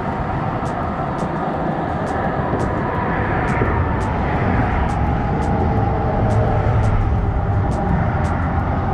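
Steady engine noise with a few held tones over a low rumble that swells about six seconds in, with faint ticks about twice a second.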